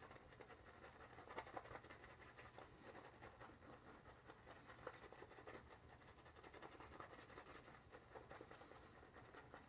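Faint, soft scratchy swishing of a two-band silvertip badger shaving brush working lather over the face.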